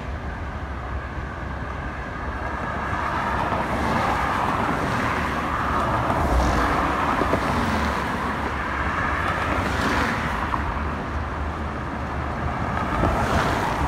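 Road noise of a moving car heard from inside the cabin: a steady rumble and tyre hiss, a little louder from about four seconds in, with brief swishes near five, ten and thirteen seconds.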